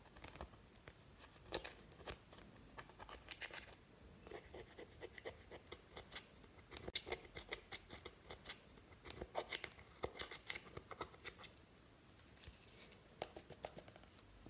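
Small metal spatula scraping and picking pressed eyeshadow out of a palette's pans, crumbling the powder: faint, irregular scratches and ticks. They come thickest through the middle, then pause briefly before a few more near the end.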